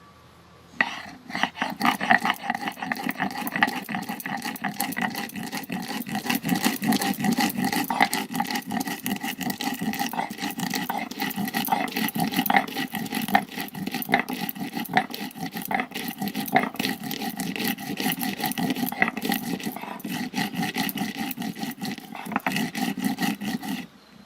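Stone roller (batta) rubbed rapidly back and forth over a flat grinding stone (sil), grinding by hand, a continuous rough scraping made of many quick strokes. It starts about a second in and stops abruptly near the end.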